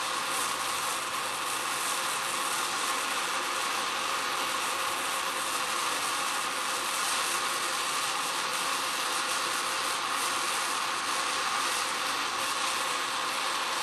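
Handheld gas torch burning with a steady hiss, its flame held against a painted wood board.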